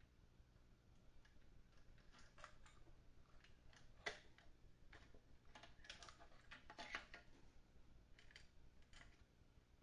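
Faint scattered clicks and light rattles of small parts and wiring being handled while the amplifier is reassembled, with the sharpest clicks about four and seven seconds in.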